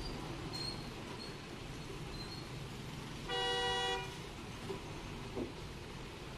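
Steady low rumble of road traffic and a heavy truck's engine running as the truck turns. A vehicle horn honks once, a single steady tone lasting under a second, a little over three seconds in.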